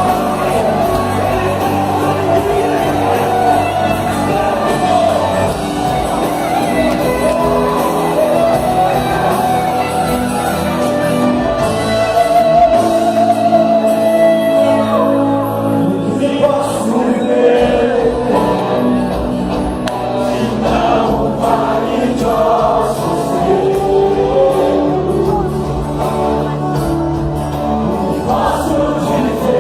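Live gospel worship band playing with singing voices carrying the melody.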